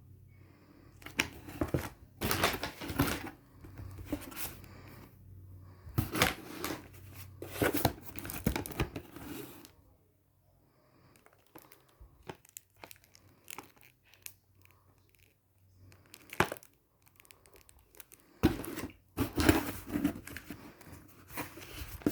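Packaging torn open and crinkled by hand: bursts of loud tearing and rustling, with quieter handling in a lull in the middle.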